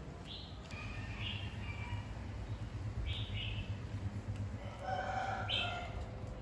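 Baby macaque giving short, high-pitched calls about four times, the crying contact calls of an infant looking for its mother, over a steady low hum.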